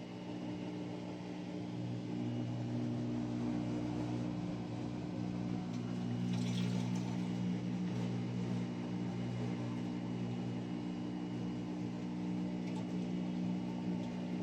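Maytag top-load washer running with a steady electric hum, sounding as it does while sensing and draining before jumping to finish with the F7E4 fault.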